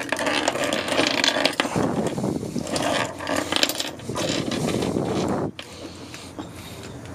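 Metal pump-out deck-fill cap being screwed down tight with a deck key, its threads grinding in three turns before it stops about five and a half seconds in.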